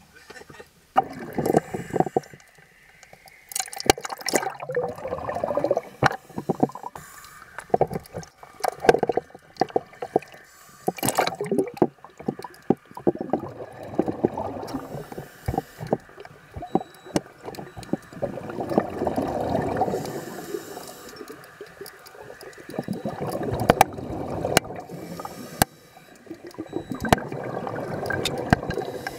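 Water gurgling and bubbling around a camera held under the surface, swelling and fading every few seconds, with many sharp clicks and knocks through it.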